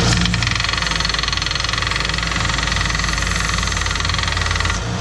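Electric power sander running steadily against the edges of a turned wood piece, smoothing them flush. It starts just after the beginning and cuts off near the end, over a steady low hum.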